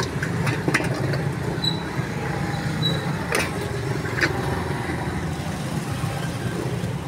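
Steady low rumble of street traffic. Over it come a few sharp metallic clicks and knocks from a hand-lever citrus press and a steel bowl as sweet limes are juiced, the loudest about three and a half seconds in.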